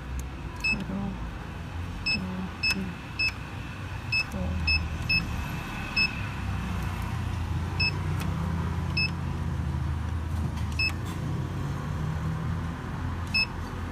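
ATM keypad beeping as the digits of an account number are keyed in: about a dozen short, high beeps at uneven intervals, over a low steady hum.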